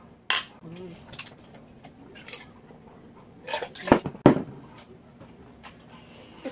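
Two tall drinking glasses set down on a table with two sharp knocks about four seconds in. Smaller clicks and knocks come earlier, while the glasses are being drunk from.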